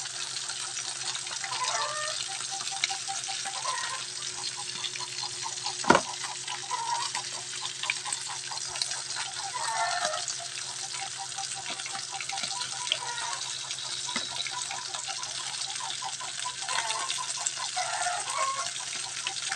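Oarfish pieces frying in oil in a nonstick pan: a steady sizzle with fine crackling, and one sharp knock about six seconds in.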